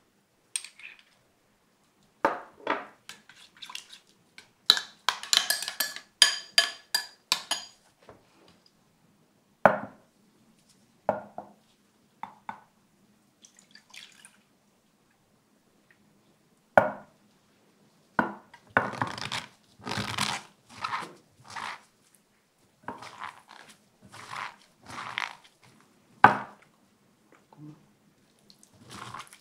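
A metal spoon clinking against a glass bowl as sauce is stirred, a cluster of ringing strikes. Then come single sharp knocks of glassware set down on a wooden board, and starch water poured from a glass measuring cup.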